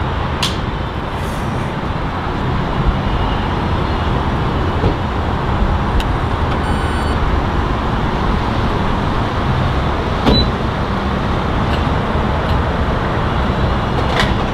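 Steady low rumble of vehicles and road traffic, with a few faint sharp clicks.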